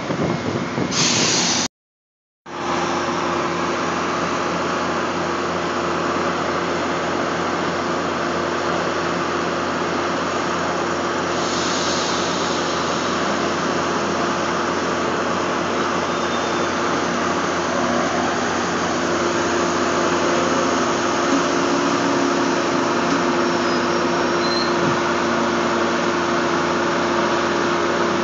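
Passing electric commuter rail cars rumble briefly, and the sound cuts out about two seconds in. Then a diesel locomotive's engine runs steadily with a constant hum as the locomotive creeps slowly past.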